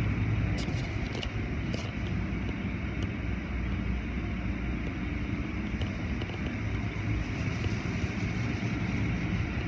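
Automatic car wash heard from inside the car: cloth wash strips and brushes scrubbing over the glass and water spraying on it, over a steady low rumble of the wash machinery. A few sharp ticks come in the first couple of seconds.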